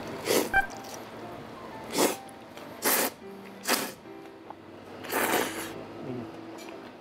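Five slurps as curry noodles are sucked up off chopsticks, the last one longer, over faint background music.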